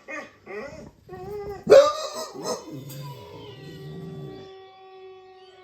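Dog vocalising: a few short whimpering yips, then a loud sudden cry a little under two seconds in, giving way to one long steady howl.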